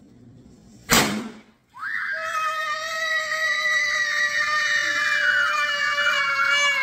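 A twist-operated gender-reveal confetti cannon fires with one sharp pop about a second in. Less than a second later comes a long, steady, high-pitched scream of excitement.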